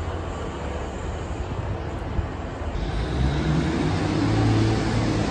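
Diesel trains running at a station platform: a steady low rumble, then, changing abruptly about three seconds in, a louder engine hum with several steady tones.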